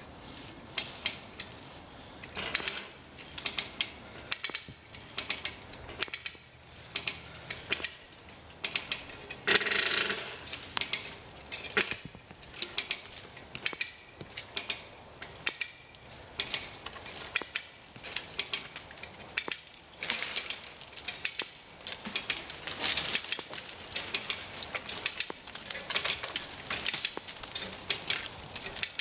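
Hand-operated ratchet winch being levered, its pawl clicking in short bursts about once a second as it tightens a chain to pull over an oak by its roots.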